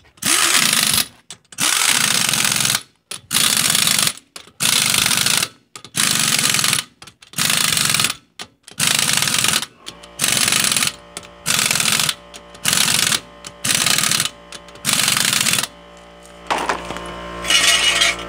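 Pneumatic impact wrench firing in repeated short bursts, about one a second, hammering nuts down tight. A steady hum comes in near the end.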